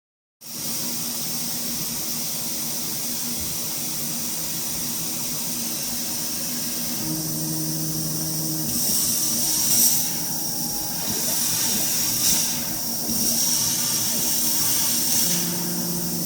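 Avid CNC router carrying a laser through test cuts: a steady hiss with a high-pitched whine from the machine's motors. The whine grows louder about halfway through, and short low motor tones come in briefly twice as the gantry moves.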